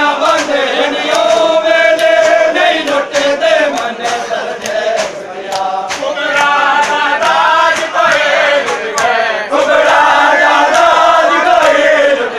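Men chanting a nauha lament together in chorus, with the regular slaps of hands beating bare chests (matam) keeping the beat.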